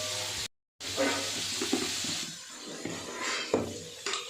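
Sliced onions frying in hot coconut oil, a steady sizzle that is strongest in the first half and grows fainter. Two brief silent gaps near the start.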